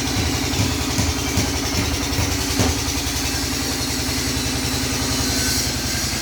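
An engine running steadily with a low, even pulse, and one sharp knock about two and a half seconds in.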